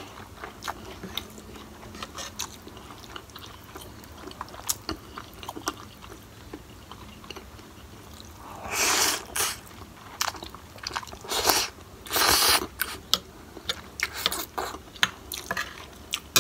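Close-up mouth sounds of a person eating instant noodles in curry broth: small wet chewing clicks and smacks throughout, with loud slurps of noodles about nine seconds in and twice more a few seconds later.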